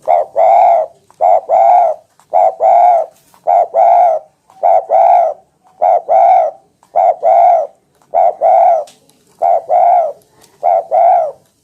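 Spotted dove (tekukur) cooing again and again. Each phrase is a short note followed by a longer, fuller coo, and the phrases are repeated about every 1.2 seconds, loud and clear.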